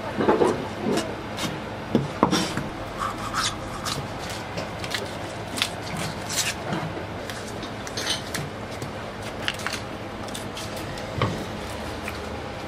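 Irregular clicks, taps and rubbing of small objects being handled, over steady background noise.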